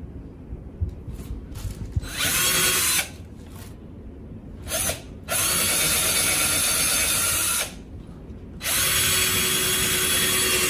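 Cordless drill boring into the wall in four bursts: two short ones, then two longer runs of a few seconds each.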